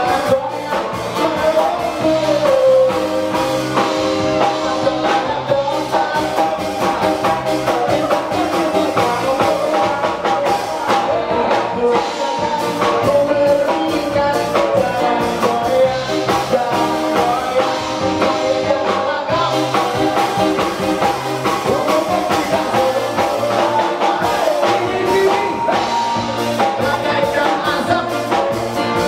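A female-voiced singer performing a pop song into a microphone over instrumental backing with drums, amplified through a PA in a hall.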